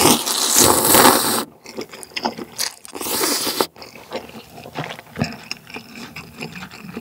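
Cold buckwheat noodles (mul-naengmyeon) slurped in two loud slurps, a long one of about a second and a half and a shorter one about three seconds in. After that come chewing and small wet mouth clicks.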